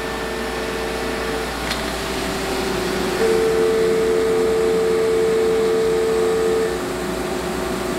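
CNC mill roughing a dovetail with a quarter-inch five-flute end mill under flood coolant: a steady cutting tone over the hiss of coolant spray. The tone drops out about a second and a half in, comes back about three seconds in, and drops out again near the end.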